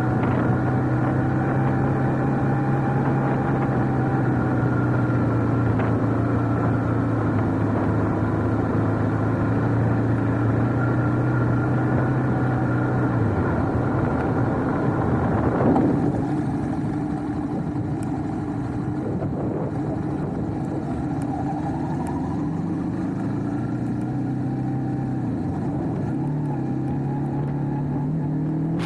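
Motorcycle engine running at a steady idle. About halfway through its pitch sags and the sound changes, and near the end the pitch rises as the engine revs up.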